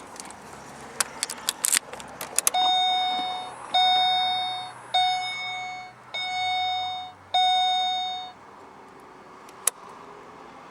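Holden VE Commodore's in-car warning chime sounding five times, about one a second, each tone ringing and then fading, after a few sharp clicks.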